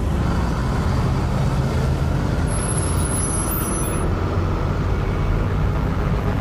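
Steady street traffic noise, a continuous low rumble of car engines.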